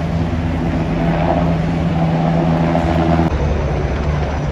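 Military helicopter hovering, a steady drone of turbine and rotors over a low rumble; the higher whine cuts off abruptly about three seconds in, leaving the low rumble.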